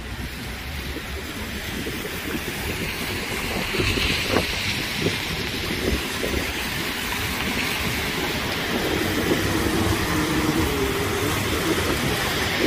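City street traffic on wet pavement: cars passing with their tyres hissing on the wet road over a low, steady rumble. The hiss swells about four seconds in and again near the end.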